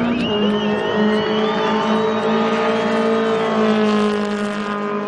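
Racing car engine running at high, steady revs as the car speeds past, with a slight fall in pitch in the middle.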